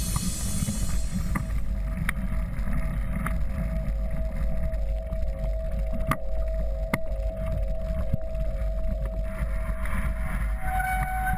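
Wind rumbling on a bike-mounted camera microphone as a mountain bike rolls over grass and stone paving, with a few sharp clicks and knocks from the bike and a faint steady tone underneath.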